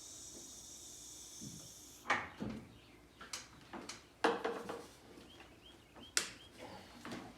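Irregular knocks and clunks, about seven of them after the first two seconds, with a few faint high squeaks in the middle; no engine is running.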